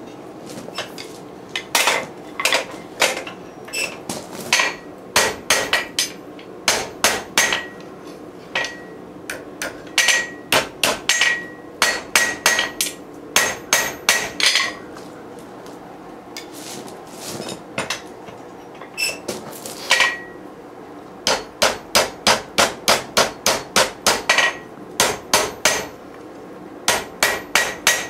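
Hand hammer striking red-hot rebar on a steel anvil, in runs of about two to three blows a second. Many blows leave a brief ringing note from the anvil. There is a pause of a few seconds midway.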